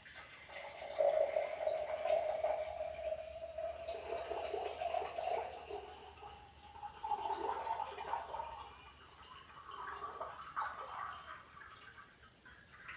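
Water poured from a measuring jug into a glass jar, splashing and trickling, its pitch rising slowly as the jar fills.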